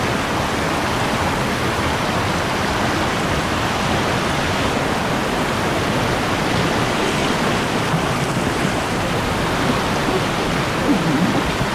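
Whitewater rushing over a boulder ramp in a river, heard up close from a kayak in the rapid; a steady, loud rush of water.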